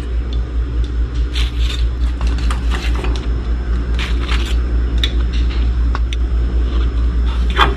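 Metal kitchen tongs clinking and scraping lightly on a wire strainer and plate as pieces of fried battered fish are moved, a few scattered clicks over a steady low rumble.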